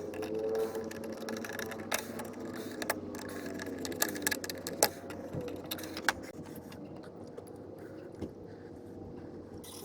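Sharp metallic clicks and clinks, a few seconds apart, over a steady hum, typical of hand tools and parts being handled while reassembling an engine bay.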